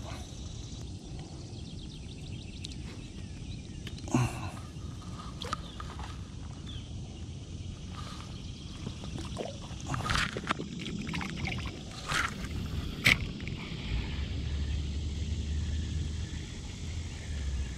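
Water lapping and sloshing around a small inflatable boat, with scattered sharp clicks and knocks from handling a landed largemouth bass and fishing tackle. From about two-thirds of the way through, a steady low hum sets in underneath.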